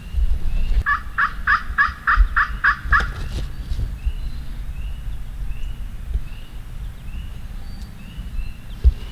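Wild turkey yelping: a run of about eight evenly spaced yelps over two seconds, starting about a second in. A small songbird chirps faintly and repeatedly throughout, over low rumble and a thump near the end.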